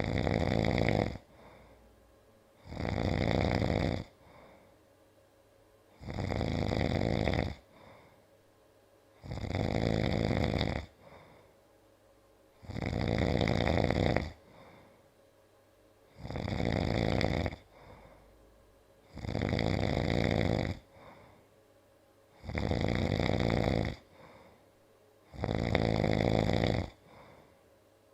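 A man snoring loudly in a steady rhythm: nine long snores, about one every three seconds, each lasting about a second and a half.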